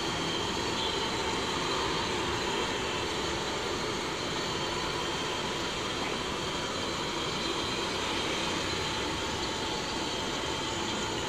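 Malpuas deep-frying in a large kadhai of hot oil: a steady sizzle as fresh batter is poured in among the frying cakes.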